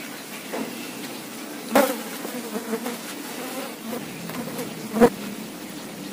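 A steady, wavering low buzz, with two sharp knocks, one about two seconds in and a louder one about five seconds in.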